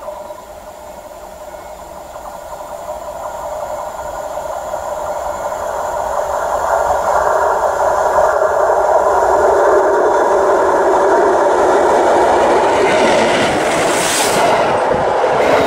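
Steam-locomotive-hauled train running over the track, its rolling rumble growing steadily louder as it approaches and then passing directly overhead at full loudness. A burst of hiss comes about fourteen seconds in as the train is above.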